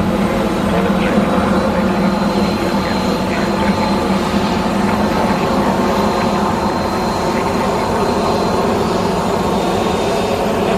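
Jet airliner engines running steadily, with a thin high whine above a dense low drone.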